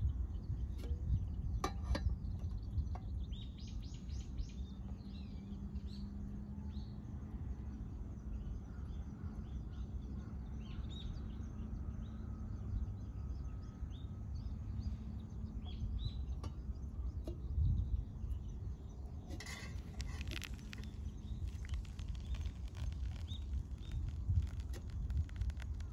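Small birds chirping now and then over a low steady outdoor rumble. About three-quarters of the way through, a thin stream of water starts pouring into a drip-bag coffee filter in a wooden cup, a steady splashing hiss that runs on to the end.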